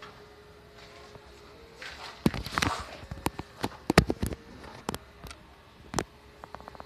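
A run of about a dozen sharp knocks and clicks, with a brief rustle, between two and six seconds in, over a faint steady hum.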